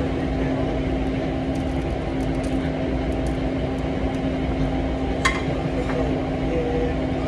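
Steady drone of commercial kitchen equipment with a constant low hum, and a single sharp clink of dishware about five seconds in.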